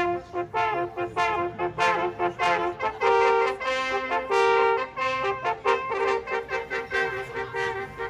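Traditional Austrian hunting music played on brass instruments: a run of quick short notes, two louder held chords in the middle, then quick notes again.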